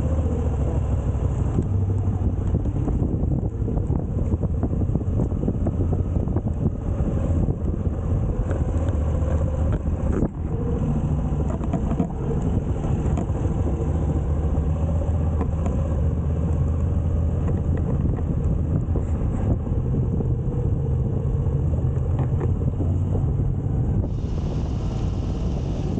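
Moto Guzzi V85TT's air-cooled transverse V-twin running steadily under way, with a short drop in level about ten seconds in.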